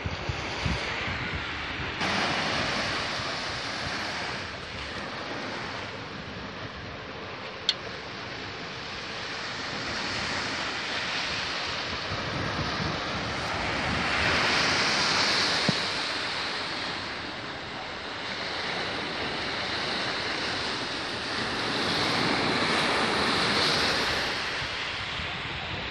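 Sea surf: a steady wash of noise that swells louder twice as waves break and run up the shore, with a single sharp click about eight seconds in.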